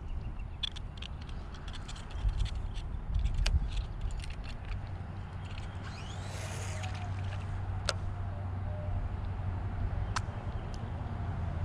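Wind buffeting the microphone, a steady low rumble, with scattered sharp clicks and knocks in the first few seconds, a brief hiss about six seconds in, and two more single clicks later.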